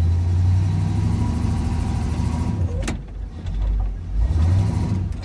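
K20 plow truck's engine revving hard in two pushes as it tries to reverse out of a deep snowdrift and bogs down stuck, with a single clunk about three seconds in.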